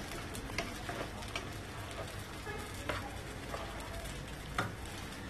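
Bulgur and fine vermicelli sautéing in oil in a coated frying pan: a soft steady sizzle, with scattered light scrapes and taps of a wooden spoon stirring the grains.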